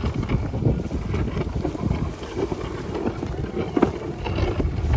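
Wind buffeting the microphone: a low, uneven rumble that rises and falls.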